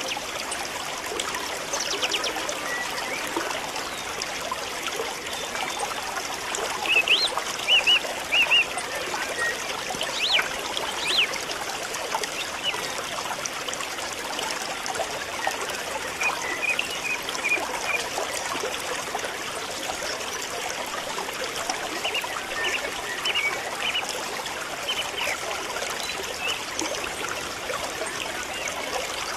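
A steady rushing background like trickling water, with short high chirps in small clusters several times, loudest about a third of the way through.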